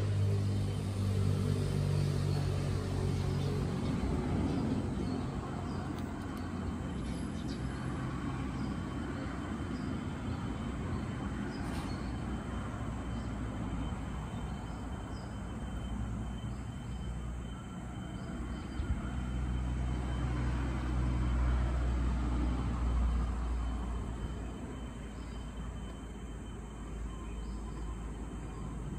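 Road traffic passing: a steady low rumble of vehicle engines and tyres, louder at the start and again about twenty seconds in.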